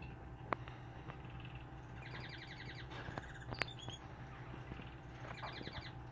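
High chirping from a small animal: two quick pulsing trills and a few short single chirps between them. A sharp click comes about half a second in and another a little past halfway, over a steady low hum.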